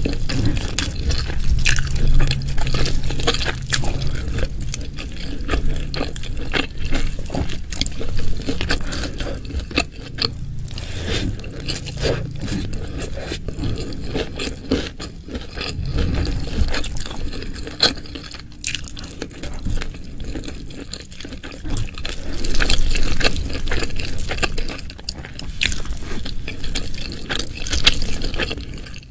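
Close-miked wet chewing and mouth sounds of a person eating, with many small clicks and smacks.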